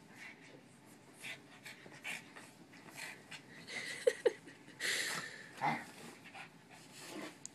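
Small dog panting in short huffs while play-wrestling on a bed, with two brief squeaks about four seconds in and a louder breathy burst just after.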